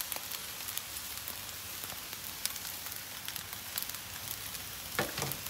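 Food sizzling on a hot flat-top griddle: a steady hiss with scattered crackling pops from rice, eggs and shrimp frying in oil. A short sharp knock sounds near the end.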